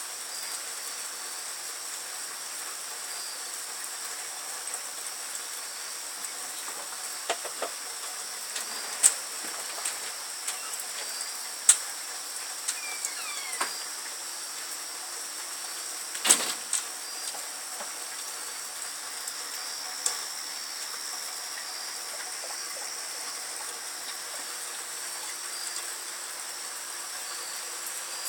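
Steady light rain under a high-pitched chorus of night insects, broken by scattered sharp taps of acorns and drips dropping from trees. The taps come every few seconds in the first two-thirds, the loudest about a third and about halfway through.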